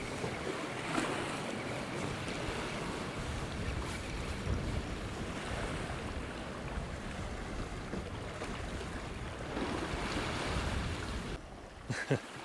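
Sea waves washing against a rocky shore, with wind buffeting the microphone; both ease off near the end.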